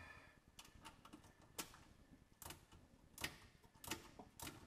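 Faint, irregular metallic clicks and taps, about two a second, from hand work on the engine and transmission bell housing under a UTV: tools and parts being handled against metal.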